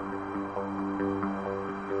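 Background instrumental music with held notes.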